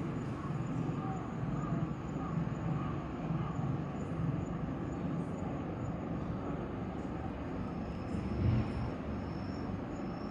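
Electric commuter train running with a steady low rumble, with faint high bird chirps over it in the second half.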